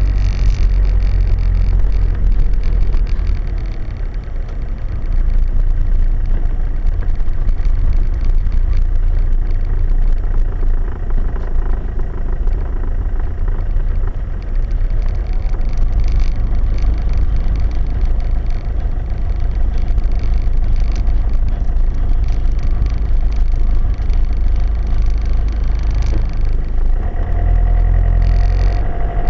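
Hymer 564 motorhome driving slowly, its engine and road noise heard from inside the cab as a steady low rumble that eases briefly about four seconds in.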